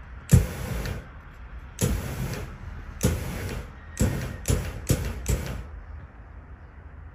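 Two Yonntech Fire DMX flame machines firing short jets of flame, each burst starting abruptly and lasting about half a second. There are three bursts about a second apart, then four in quick succession from about four seconds in.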